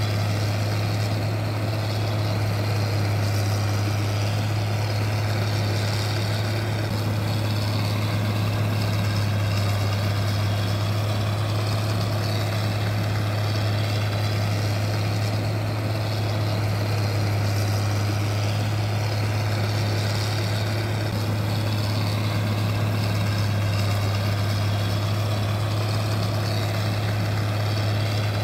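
Steady mechanical hum: one loud, constant low tone under a continuous hiss, holding the same pitch and level with no revving or breaks.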